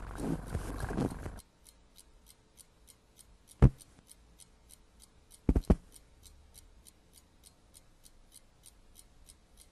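A clock ticking steadily, about four ticks a second, with one sharp thump a third of the way in and a quick double thump about two seconds later. Before the ticking, a cartoon cat's vocal noise cuts off about a second and a half in.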